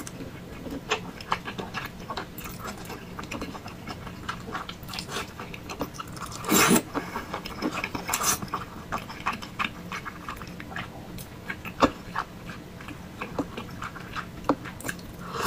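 Mouth sounds of eating thick noodles with meatballs: chewing and biting, heard as many small clicks, with two longer, louder bursts about halfway through.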